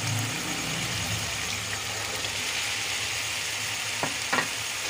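Onion and spice masala sizzling in ghee in a pan: a steady frying hiss over a low hum, with two short knocks about four seconds in as the boiled chickpeas are added.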